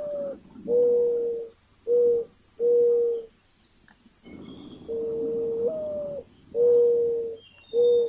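Male mourning dove singing its perch song, the low mournful coo-ah, coo, coo, coo. It sings it twice. The long first note steps up in pitch and slides back down, and three shorter steady coos follow. The second song starts about five seconds in.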